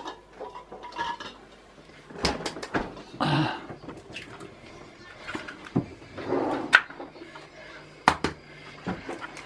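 Kitchen clatter of dishes and utensils: a quick run of four sharp knocks about two seconds in, a short rustle, then a few scattered single clicks.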